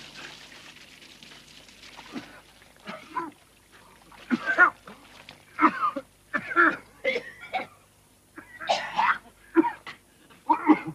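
A man coughing and gasping in repeated harsh fits, choking for breath after nearly suffocating; a soft hiss comes first, before the coughing starts about three seconds in.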